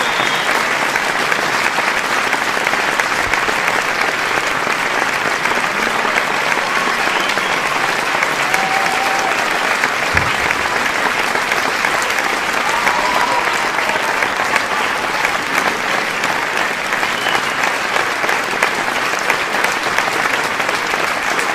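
Large audience applauding with steady, dense clapping, with a few brief shouts from the crowd now and then.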